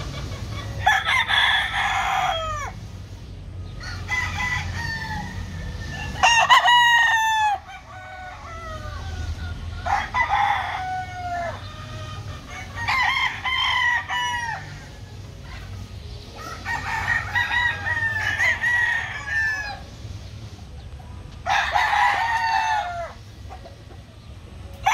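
Several gamecocks crowing in turn, each crow lasting a second or two. The crows come every few seconds and sometimes overlap, some nearer and louder than others.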